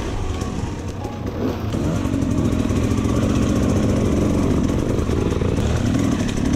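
Dirt bike engine running steadily while riding a rough forest trail, recorded by an on-board camera, with other enduro bikes close ahead.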